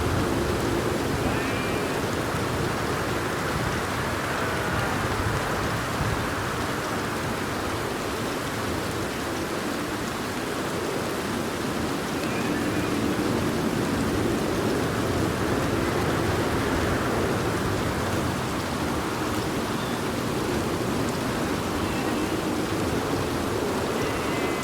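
Steady, even rainfall, a dense hiss of rain with no breaks or single loud strikes.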